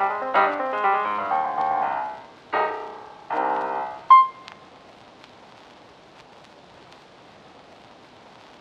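Piano background music that breaks off about four seconds in on a single bright ringing note. After that only a faint steady hiss remains.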